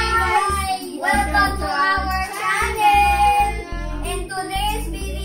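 A child singing over music with a steady bass beat.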